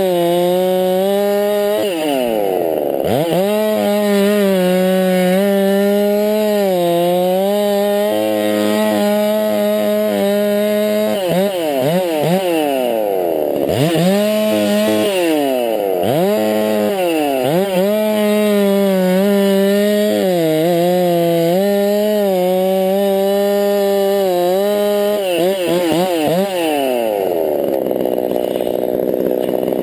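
Ported ('Walkerized') Husqvarna 390 XP two-stroke chainsaw cutting through an arbutus log at full throttle. Its revs drop sharply and climb back several times as the throttle is let off and reapplied. Near the end it settles to idle.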